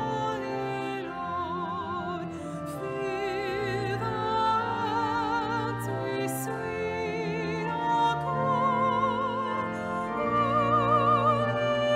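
Closing music at the end of a Catholic Mass: a slow melody with marked vibrato, sung or played, over sustained low accompanying notes.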